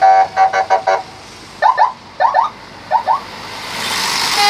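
Bus telolet musical air horn sounding a quick run of about six short pulsed notes, then three pairs of short rising chirps. A rising rush of noise builds near the end.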